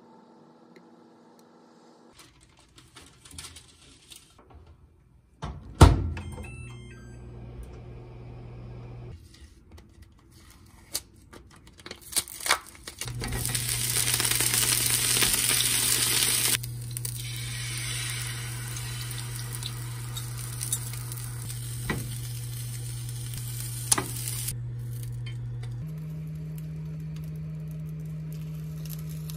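Curry-seasoned egg mixture sizzling in an oiled square tamagoyaki pan. The sizzle is loudest for a few seconds about halfway through, as the egg hits the hot pan, then settles to a steady sizzle with occasional spatula taps over a low hum. It is preceded by faint clicks and one sharp knock about six seconds in.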